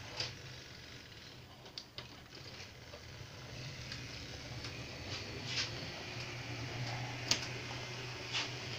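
Electric model train running on its layout: a steady low motor hum that grows a little louder about six to eight seconds in, with scattered light clicks and taps.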